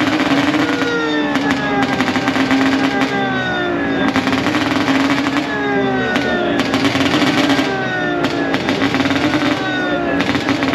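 Engines of several vintage racing cars running at the start line, revs blipped up and falling back again and again, with sharp exhaust crackles and pops over a steady engine note.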